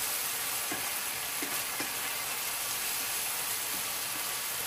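Sliced mushrooms and onions in cream sizzling steadily in a frying pan as they are stirred with wooden chopsticks, with a few soft stirring sounds in the first couple of seconds.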